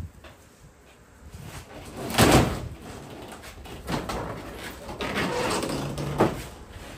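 Demolition work on house siding: a loud scraping knock about two seconds in, then more knocking and scraping with a creak, and a sharp knock about six seconds in.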